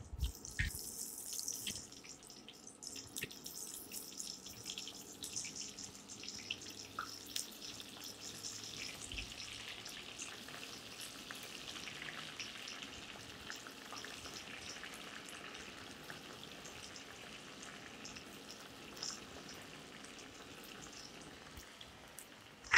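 Batter-coated soya chunks deep-frying in hot sunflower oil. A burst of sizzling as the pieces drop in settles into a steady bubbling sizzle with scattered crackles.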